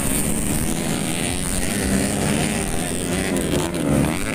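Several modified underbone racing motorcycles running on a dirt grasstrack, their small engines revving and overlapping as they race through a corner. Near the end one engine's pitch dips and then climbs again.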